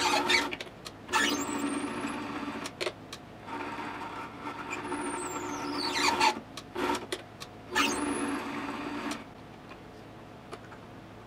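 Mini metal lathe running and cutting a brass rod: a steady motor whine in several spells with short pauses, with high squeals that glide down and up as the tool cuts. The lathe stops about nine seconds in.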